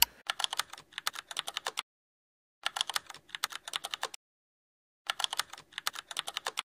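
Typing sound effect of keyboard keys clicking in three quick runs of about a second and a half each, with dead silence between them.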